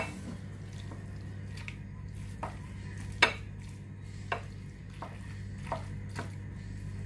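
A spatula stirring a thick, creamy shredded-chicken and cheese mixture in a ceramic bowl, knocking against the bowl's side now and then, loudest about three seconds in. A steady low hum runs underneath.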